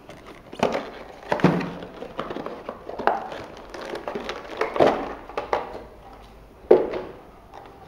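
An action camera's cardboard box and clear plastic packaging being handled and unpacked by hand: irregular rustling and crinkling with several knocks, the sharpest near the end.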